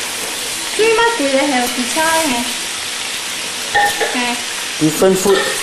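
Stir-frying in a wok: vegetables and meat sizzling steadily in hot oil while a metal spatula stirs and scrapes them. A few short, louder pitched sounds come about one, four and five seconds in.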